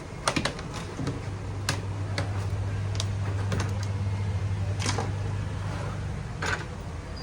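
Scattered sharp clicks and taps of tools and small parts being handled on an opened laptop during work on its loose hinge, over a steady low hum.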